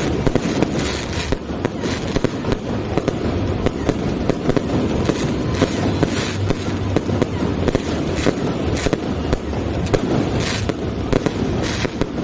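A fireworks display going off: a dense, unbroken run of rapid cracks and bangs over a low rumble, with no pause.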